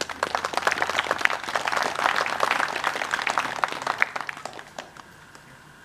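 A small crowd applauding: a quick burst of clapping that starts at once, holds for a few seconds and dies away about five seconds in.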